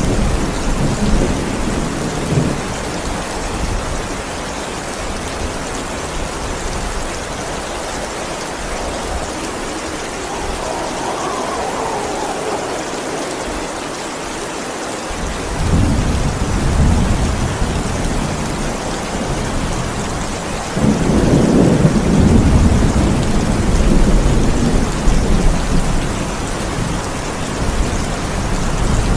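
Steady rain with thunder: a low rumble of thunder comes in about halfway through and swells louder towards the end.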